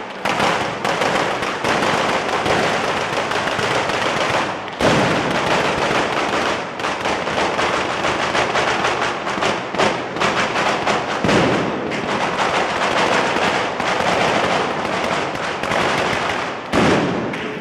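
Fireworks on the ceremonial cart going off in a dense, unbroken crackle of firecrackers, with heavier bangs about five seconds in, about eleven seconds in, and near the end.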